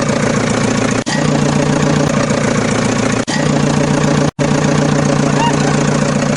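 Vehicle engine idling steadily, a loud even hum, with three brief cut-outs about one, three and four seconds in.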